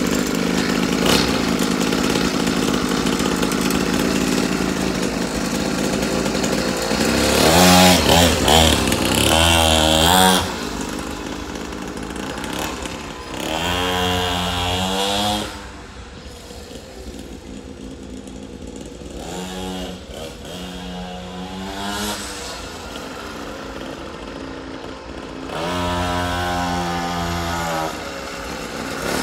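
Small engine of a mini dirt bike idling close by, then revved hard several times with the pitch sweeping up as it pulls away. It fades and runs quieter while the bike is farther off, then grows louder again with more revving as it comes back near the end.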